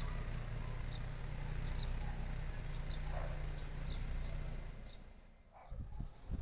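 Low, steady engine rumble with faint high chirps over it, fading out about five seconds in; then wind buffets the microphone in gusts.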